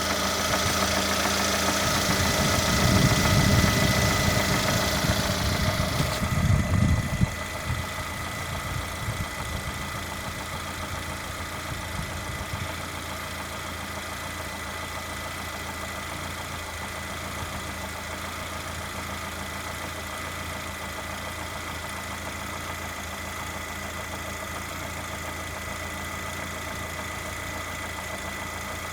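Lada Granta's VAZ-21127 1.6-litre four-cylinder engine running hot with a knock. It is louder and uneven for the first seven seconds or so, then settles to a steady idle.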